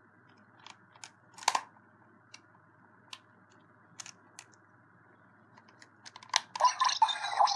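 Scattered plastic clicks as a Ben 10 Deluxe Omnitrix toy is handled and its dial worked. About six seconds in, the toy's electronic sound effects start up loud, with wavering pitched tones.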